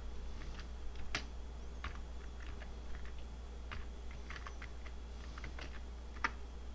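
Computer keyboard keystrokes, slow and irregular, as a terminal command is typed out, with a louder keystroke about six seconds in. A steady low hum runs underneath.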